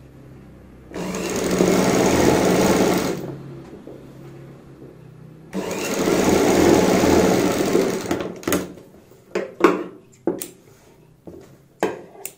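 Sewing machine stitching in two runs of about two seconds each, with a pause between. In the last few seconds come a series of short, sharp snips and clicks from tailor's shears.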